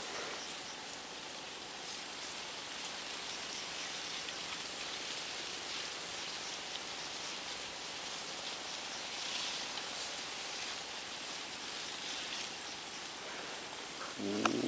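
Quiet canal-side outdoor ambience: a soft steady hiss with faint scattered ticks and a thin steady high tone. Just before the end, louder sounds break in.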